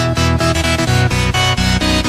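Electronic background music with a steady beat.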